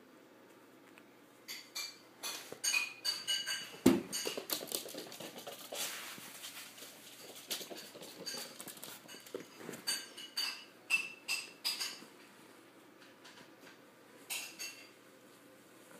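A small puppy scampering on a hardwood floor, its claws and paws clicking and pattering in quick irregular bursts, with one louder knock about four seconds in.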